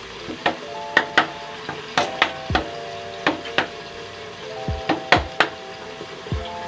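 Metal spatula knocking and scraping against a stainless steel wok, about a dozen irregular clacks, while stirring corned chicken as it fries. Background music with held notes plays underneath.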